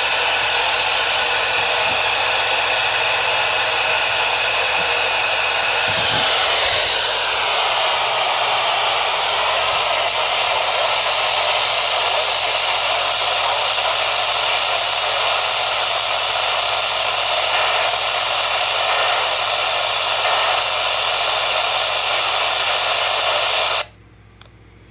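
Steady radio static hiss from a weak signal, with the broadcast lost in it. A faint tone slides down in pitch about seven seconds in and then holds steady. The static cuts off suddenly about a second before the end.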